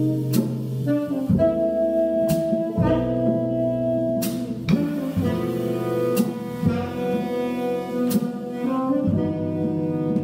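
Jazz quartet of tenor saxophone, guitar, double bass and drums playing live: the tenor sax holds long notes over held double bass notes, with a drum-kit hit about every two seconds.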